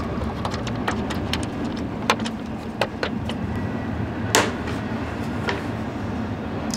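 Scattered clicks and knocks of a ratchet and socket backing out screws and of a plastic air-filter cover being worked loose on a lawn mower engine, with one sharper knock a little past the middle. A steady low rumble runs underneath.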